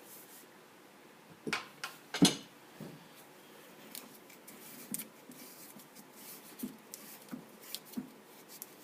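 Metal hand tools and parts clinking and knocking on a small Sears Craftsman lathe as the loosened spindle nut is worked off. There are a couple of sharper knocks in the first few seconds, then lighter scattered clicks.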